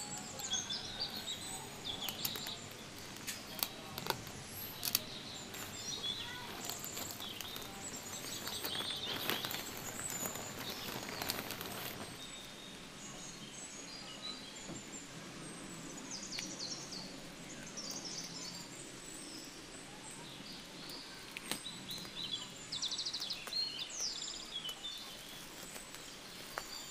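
A plastic courier mailer bag crinkles and rustles as hands open it, with sharp crackles in the first few seconds. Then bubble wrap around a cardboard box rustles as it is handled. Birds chirp in the background.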